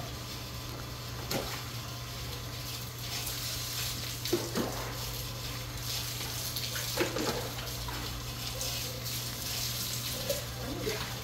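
Water poured from a plastic pitcher splashing onto a wet dog's coat and the concrete floor during a bath, with a few short knocks.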